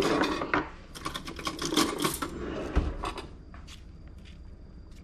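Stainless cutlery clinking and rattling in a kitchen drawer's wire organizer as a fork is picked out, with one dull thump about three seconds in, then a few light clicks.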